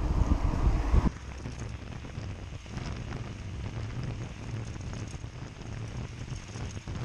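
Wind buffeting the microphone of a camera on a moving bicycle, which cuts off abruptly about a second in. After that comes a quieter, steady rumble of the bike's tyres on tarmac with light wind.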